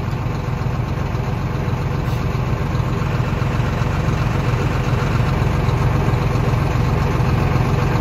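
Diesel engine of a farm vehicle idling steadily during refuelling, heard from inside its open cab.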